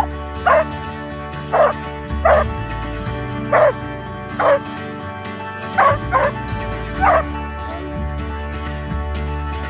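A Belgian Malinois barking about eight times, short separate barks at uneven gaps over the first seven seconds, heard over background music.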